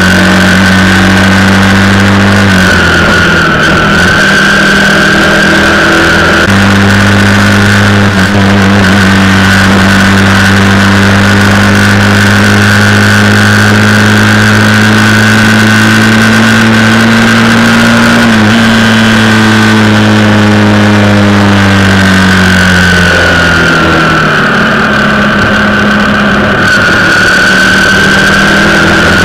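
Ducati motorcycle's twin-cylinder engine running loud and close while riding at fairly steady revs, the pitch dipping a few seconds in and easing down again near the end.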